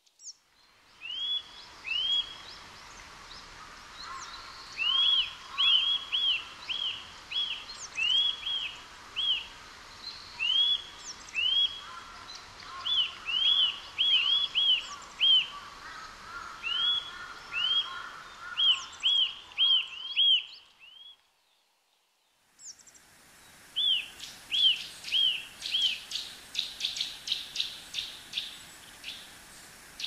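Eurasian nuthatch singing loud, clear whistled notes, each rising briefly then falling in pitch, given in runs of several at about two a second. After a short break about two-thirds through, the song returns and speeds into a fast rapid series of notes near the end.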